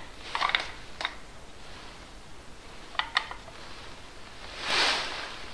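Small metal parts clicking and knocking as timing chain guides are fitted by hand to the front of a Mercedes M113 V8 engine block: a few light clicks near the start, two sharp clicks about three seconds in, then a brief scraping rustle near the end.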